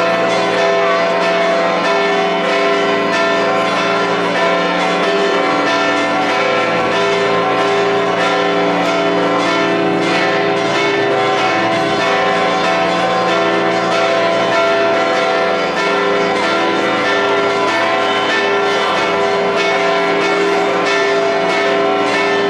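Church bells ringing without pause, quick overlapping strokes whose tones keep sounding together.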